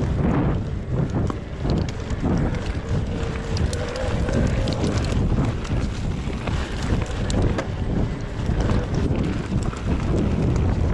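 Wind buffeting the microphone over the rumble of an electric mountain bike riding a rough downhill trail, with frequent small clicks and knocks from tyres and bike over the ground.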